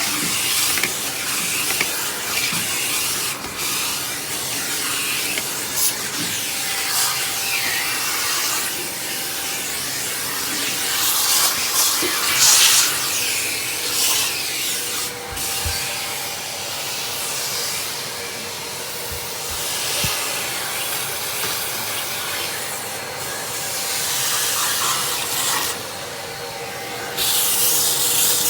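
1952 Electrolux XX canister vacuum cleaner running, its nozzle being pushed over the floor with a rubbing, hissing suction noise that rises and falls as it moves.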